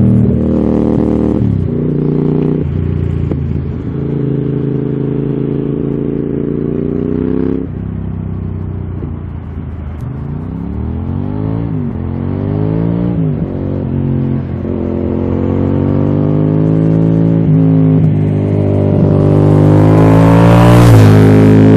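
Cagiva Raptor motorcycle's V-twin engine pulling through several gears, its pitch climbing and then dropping at each shift. It grows steadily louder as the bike approaches and is loudest as it passes close near the end.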